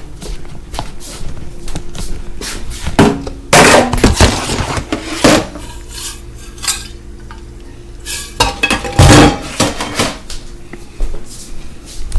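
A plate and cups clinking and knocking as they are handled and set down, in scattered taps with a few louder clatters about three to four seconds in and again near nine seconds.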